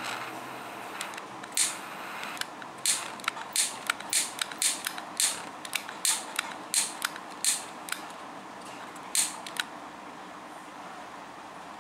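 A run of sharp, irregular clicks and crackles, about two a second, which stop near the end, over a faint steady hiss.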